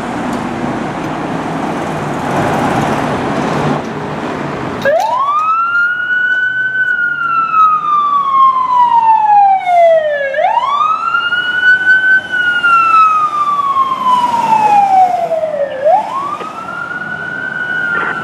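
A fire engine's engine rumbles as the truck pulls out. About five seconds in, its electronic siren starts a wail: each time the pitch climbs quickly, then slides slowly down, in cycles of about five seconds, nearly three of them.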